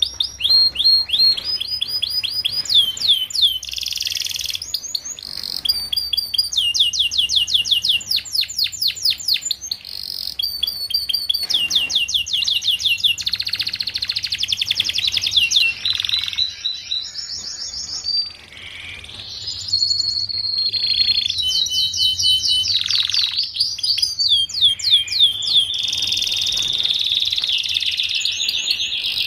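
Canary singing a continuous song of fast trills, each a rapid run of repeated sweeping high notes, changing to a new trill every second or two, with a steadier held note near the end.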